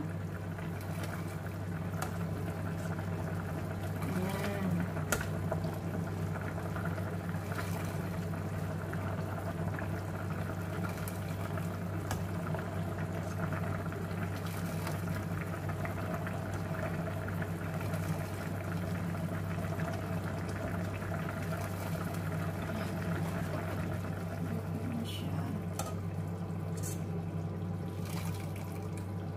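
Ladlefuls of chicken broth poured through a mesh strainer into a pan of sauce, with light clinks of the metal ladle, over pots simmering on a gas stove and a steady low hum.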